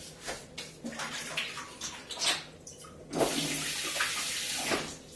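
Light rustling and small knocks, then a kitchen sink tap runs about three seconds in for a second and a half, water splashing over hands being rinsed, and is shut off.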